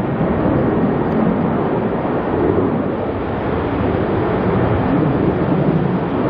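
Boeing 737-800's CFM56-7B jet engines running at takeoff power: a loud, steady, deep rumble.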